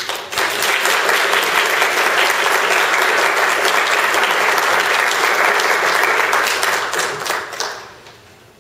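Audience applauding, breaking out suddenly and dying away after about seven and a half seconds.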